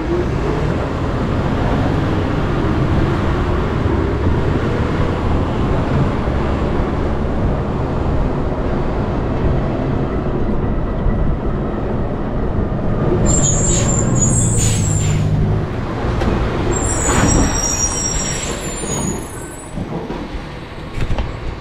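Rear-loader garbage truck driving, its engine and road noise making a steady low rumble. Its brakes squeal high and briefly twice, about two-thirds of the way in, as it slows.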